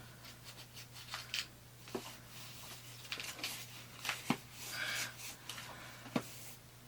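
Soft rubbing and scattered light clicks and taps from an old Pentax camera being handled and wiped clean, over a steady low hum.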